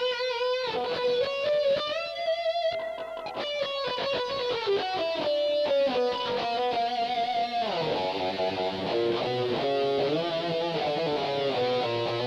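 Electric guitar, a gold-top Les Paul, playing a melodic single-note lead line with vibrato and bends on held notes. About eight seconds in it moves into fuller chordal playing.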